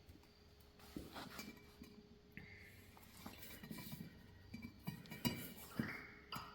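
Light metallic clinks and knocks as a new and an old brake rotor are handled and set against each other, with a few short ringing notes from the metal. A faint steady hum lies underneath.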